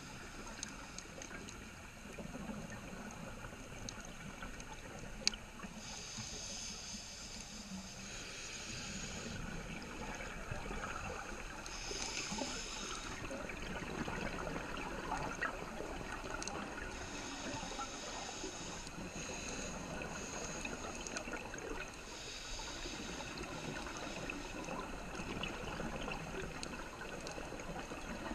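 Scuba diver breathing through a regulator underwater, heard in cycles every few seconds: a hissing inhalation, then bubbles gurgling on the exhalation.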